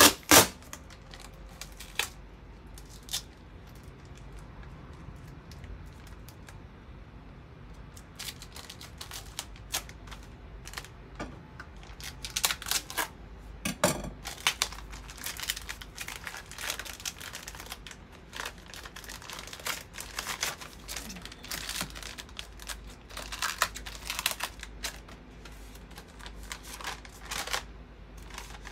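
A parcel being opened by hand: packaging torn and crinkled in bursts of rustling, crackling and tearing. The bursts are sparse for the first several seconds and come thick from about a third of the way in.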